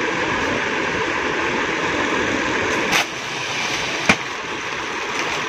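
Steady rushing background noise, with two sharp clicks about three and four seconds in, the second the louder, as plastic-bagged garments are handled on the table.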